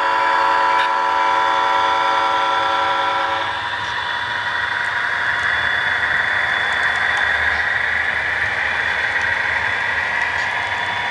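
Diesel locomotive horn holding one long blast that cuts off about three and a half seconds in, followed by the steady running noise of the freight train rolling past.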